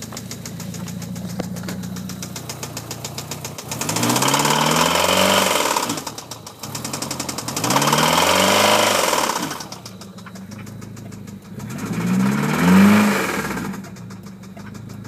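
1997 Mitsubishi Eclipse GST's turbocharged 2.0-litre four-cylinder engine idling with a fast, even ticking/knocking, then revved three times, each rev rising and falling back to idle. The ticking is the unexplained noise the owner is asking about.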